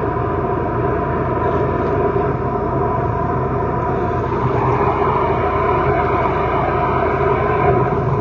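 High-pressure drain jetter running steadily, its water jet blasting grease build-up out of a kitchen waste pipe.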